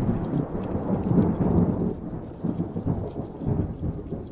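A thunderclap breaks and rolls into a long rumble over steady heavy rain, swelling again about two and a half seconds in before easing off.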